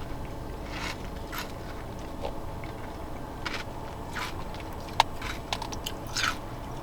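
Eating rolled ice cream close to the microphone: several short spoon scrapes and mouth sounds, with a sharp click about five seconds in, over a low steady background hum.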